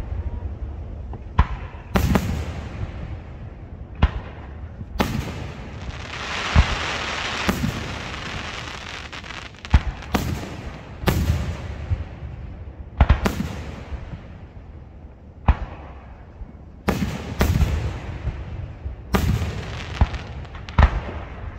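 Fireworks display: sharp bursts and booms every second or two, some trailing off in echo, with a stretch of steady hiss about six seconds in.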